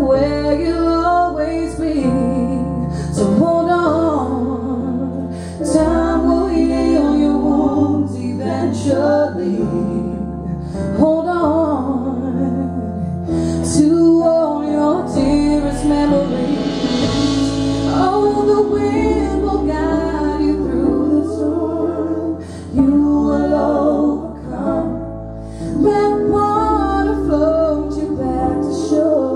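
A woman singing live into a hand-held microphone over an amplified band, with bass notes and drum hits underneath.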